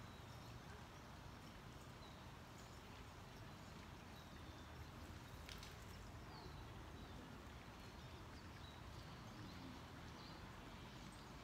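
Near silence: faint outdoor background with a few faint, brief high chirps and one faint click about five and a half seconds in.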